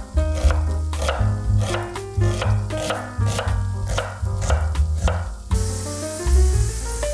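Knife chopping food on a cutting board, about two strokes a second, over background music with bass and piano. About five and a half seconds in the chopping stops and a steady sizzle of frying takes over.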